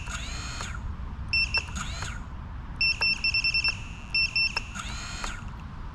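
Short, rapid high electronic beeps in three groups. After each group comes a brief rising whine as the 6-inch FPV quadcopter's motors spin up and stop. The quad does not lift: its motors are spinning the wrong way because the flight controller was not set for props-out rotation.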